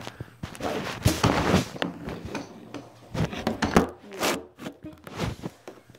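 Irregular rubbing, scraping and knocking from something being handled right against the phone's microphone.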